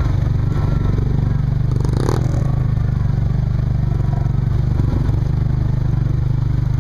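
Yamaha Rhino side-by-side's engine running steadily while driving through shallow floodwater, with a short burst of noise about two seconds in.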